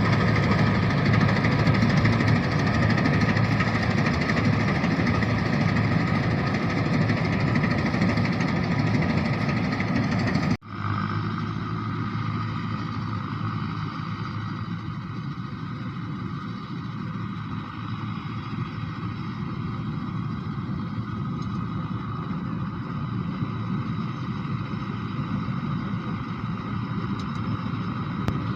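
Mahindra combine harvester's engine and machinery running steadily. About ten seconds in the sound breaks off abruptly and resumes quieter and duller.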